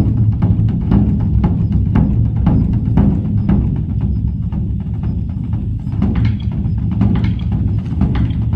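Background music with a steady percussive beat over a low bass line.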